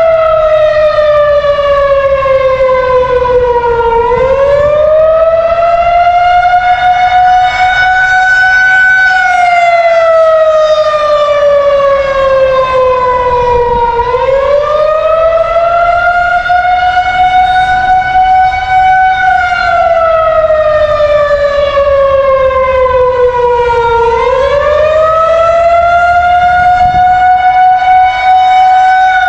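Federal Signal 2001 outdoor warning siren sounding a wail on its monthly tornado siren test. The loud tone falls, climbs back up, holds, and falls again, about once every ten seconds.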